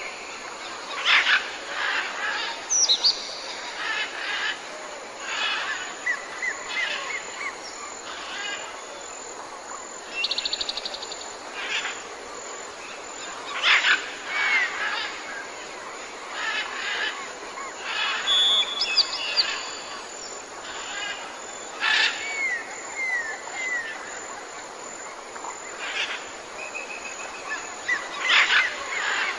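Jungle ambience with many birds calling. Loud harsh calls come every few seconds, mixed with short whistled notes that rise and fall, a rapid trill about ten seconds in, and a steady background hiss.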